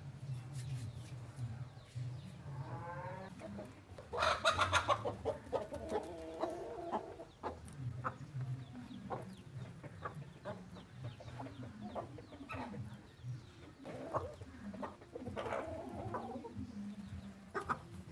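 Chickens clucking, with a rooster crowing once about four seconds in, the loudest sound here.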